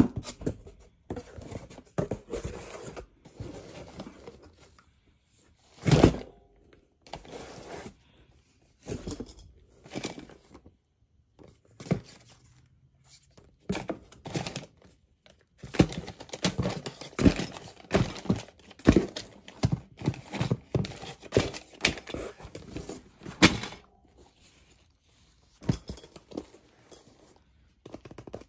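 Cardboard shipping box and its packaging being handled: irregular rustling, scraping and knocks of cardboard and plastic-wrapped packs, with a heavy thump about six seconds in and another near the end.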